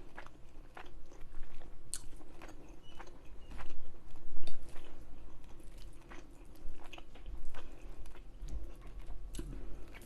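Close-miked chewing of chicken tikka masala, with wet mouth clicks and smacks at an irregular pace.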